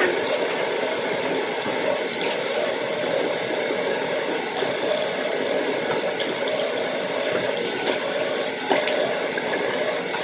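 Bathroom sink tap running steadily while face wash is rinsed off the face.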